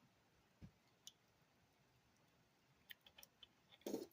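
Faint clicks and taps of plastic action-figure parts being handled, scattered through an otherwise near-silent stretch, with a small cluster of clicks and a short rustle near the end.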